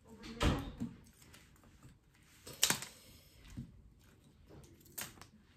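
Handling noises from scissors and flower stems being set into a vase: a soft thump about half a second in, then a crisp click near three seconds and another near the end.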